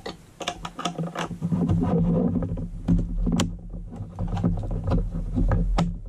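Handling noise from an aluminum power strip and its metal mounting brackets: a rapid, irregular run of clicks, taps and rattles as the brackets are worked into the ends of the aluminum channel, over a steady low hum.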